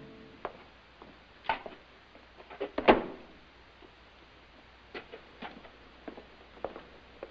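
A scattered series of short knocks and clicks, a few close together about one and a half to three seconds in, the loudest near three seconds, then a few fainter ones later.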